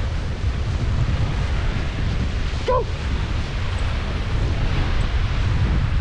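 Wind buffeting the microphone with a heavy low rumble, over a steady wash of surf. A short pitched call cuts through once, a little before halfway.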